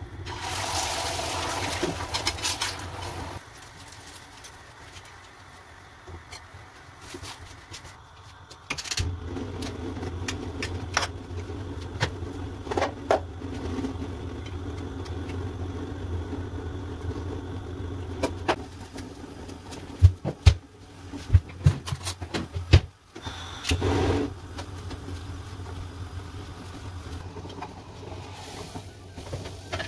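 Kitchen sounds of breakfast being cooked on a lit gas stove: a steady low hum under scattered clinks and knocks of utensils and dishes, with a cluster of sharp clacks about twenty seconds in.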